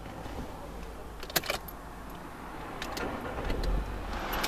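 Car keys clicking and jingling against the ignition as the key is turned, with a few sharp clicks. Near the end the car's engine cranks and starts, its noise swelling.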